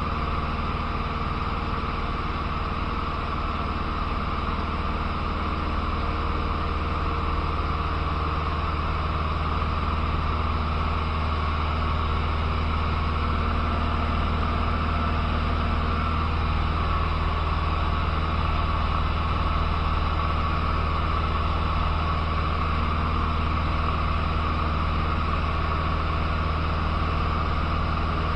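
Cessna 150's four-cylinder Continental O-200 engine and propeller running steadily in level flight, heard inside the cabin as a constant low drone with airflow noise over it.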